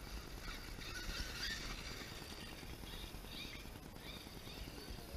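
Electric motor of a radio-controlled off-road car whining faintly, its pitch rising and falling as it speeds up and slows, over a low rumble of wind on the microphone.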